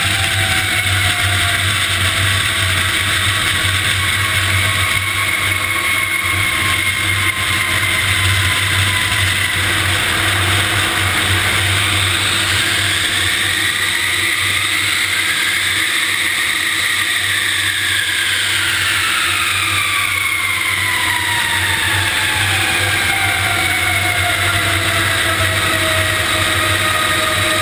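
C-5 Galaxy's jet engines running loud and steady, with whining tones that rise in pitch around the middle and then slide down toward the end.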